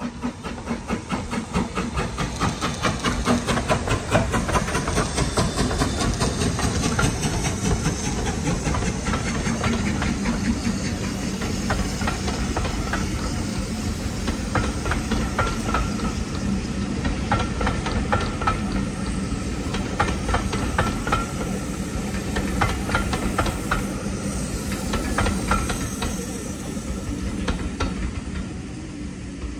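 Steam locomotive working past with a loud hiss of steam and a fast run of rhythmic beats. It builds over the first few seconds and eases off near the end.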